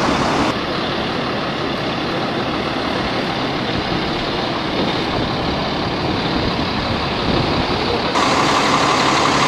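Engine of the aerial-lift boom truck running steadily, stepping up louder about eight seconds in.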